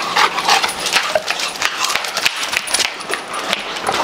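Dogs trotting on leashes over paving: a quick, irregular run of clicks and light metallic jingles.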